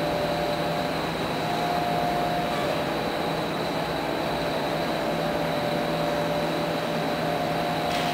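Steady hum and hiss of a control room's ventilation and electronic equipment, with a few faint steady tones running through it.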